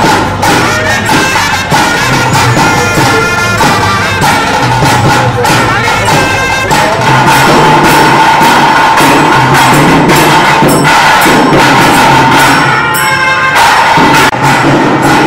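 Loud traditional music: a wind instrument holding a high, steady note over dense drumming and percussion strikes. The held note breaks off briefly near the end.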